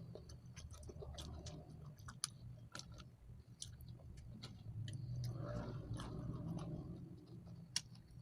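A person chewing fried chicken close to the microphone, with scattered sharp wet mouth clicks and crunches.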